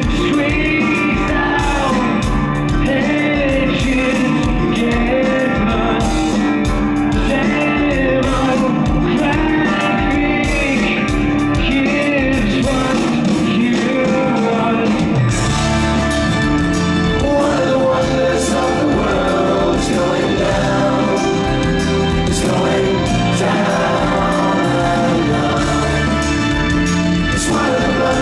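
Live progressive rock band playing with singing over it. About halfway through, the bass and drums get fuller and heavier.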